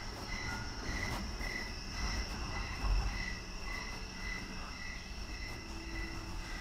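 Cricket-like chirping: a high chirp repeating about twice a second over steady high-pitched tones and a low rumble.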